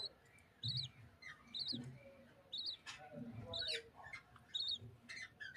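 Lovebirds giving short, high, squeaky chirps, repeated about once a second, with soft low thumps in between.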